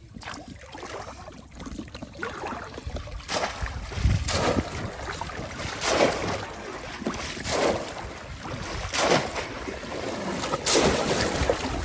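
Water splashing in a shallow pond in a string of separate splashes, about one every second and a half, over a rushing background.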